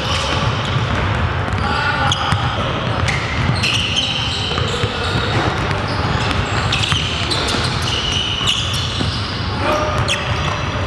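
Basketballs bouncing on a hardwood gym floor, with short high sneaker squeaks now and then, echoing in a large gym.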